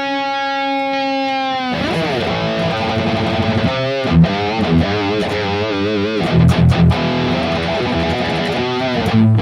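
Electric guitar through a Tube Screamer-style overdrive: one held note that bends near the end, then fast single-note lead lines broken by a few short low notes.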